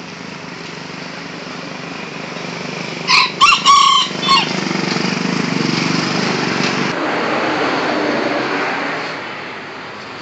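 Bantam rooster crowing once, a loud broken call about three seconds in lasting under two seconds. A steady motor drone follows and fades out a few seconds later.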